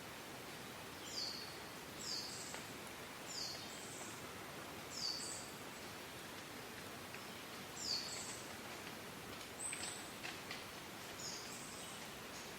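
A songbird calling over and over, short high notes that fall in pitch, about seven in all, roughly one every second or two, over a steady outdoor hiss. A few faint clicks come near the end.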